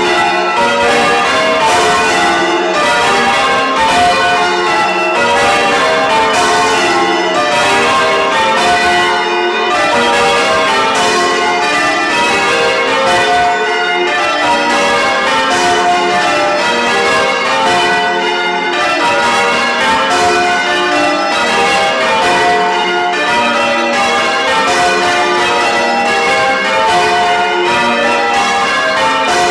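Church bells change ringing: a ring of tower bells struck one after another in a steady rapid sequence, each stroke overlapping the ringing of the last, loud and unbroken.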